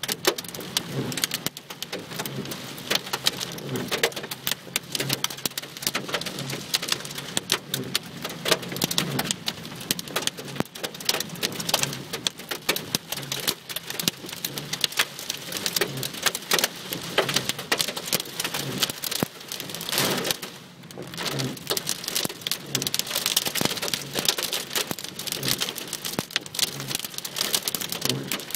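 Heavy rain during a thunderstorm, with a dense, steady run of sharp raindrop hits on a hard surface close by.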